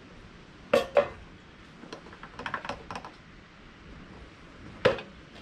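Sharp knocks and small clicks from handling refuelling gear: a metal oil jug and a plastic funnel at a portable petrol generator's fuel filler. There are two knocks in quick succession under a second in, a patter of light clicks in the middle, and one more knock near the end.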